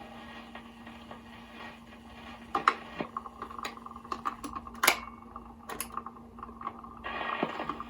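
Vintage Trav-ler record player's automatic record changer cycling: a string of irregular mechanical clicks and clunks, the loudest about five seconds in, over a steady low hum from the turntable.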